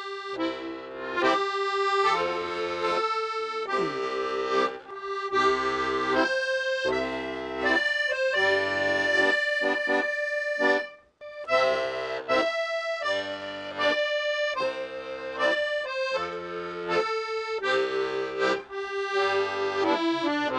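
Piano accordion playing a tune, held notes changing every second or so, with a short break about halfway through.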